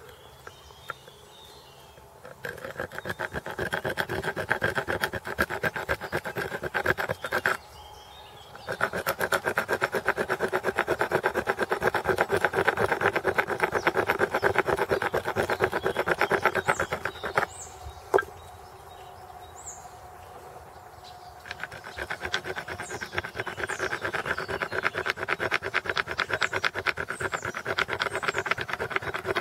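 A stone flake sawing back and forth across a deer antler: a fast, rasping scrape. It comes in three spells, with a short pause about seven seconds in and a longer one around seventeen to twenty-two seconds.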